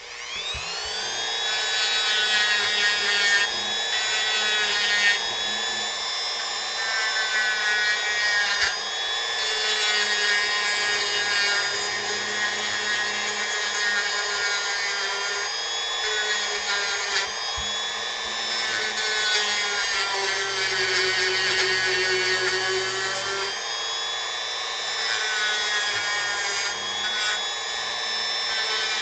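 Dremel rotary tool with a sanding attachment spinning up at the start, then running steadily with a high whine while sanding wood. Its pitch dips slightly now and then as it is pressed into the work.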